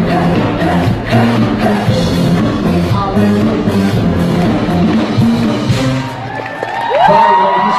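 Loud live K-pop music with singing and a steady drum beat. About six seconds in, the music drops away and a crowd's high-pitched screaming rises near the end.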